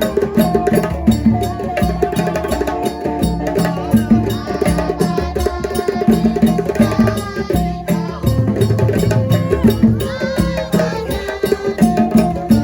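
Lively traditional percussion music: drums beating a dense, fast rhythm under sustained melodic parts, with a brief break about eight seconds in.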